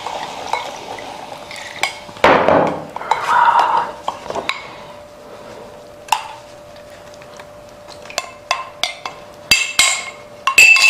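A glass bowl and a utensil clink and scrape as an oily garlic sauce is tipped out and scraped over a cooked goat head. There are two short noisy bursts about two and three seconds in, and a quick run of sharp clinks near the end, the last of them the loudest.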